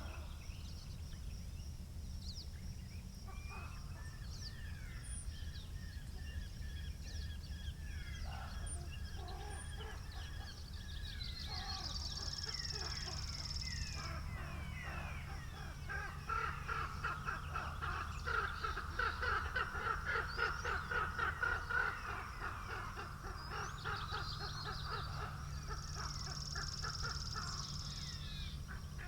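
Birds singing and calling outdoors, with many short chirps and trills that crowd together into a loud rapid chattering in the middle. Underneath is a steady low rumble of wind.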